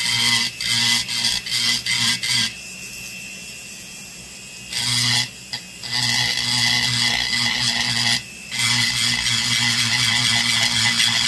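Rotary tool's burr grinding the soft crankcase of a vintage Homelite XL922 chainsaw in short, rasping passes while the cases are trenched for porting, with the tool's motor humming steadily underneath. The cutting stops for about two seconds a few seconds in, then runs again in longer passes with a brief break near the end.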